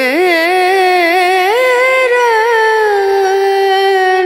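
A solo voice singing long held notes with a wavering, ornamented melody.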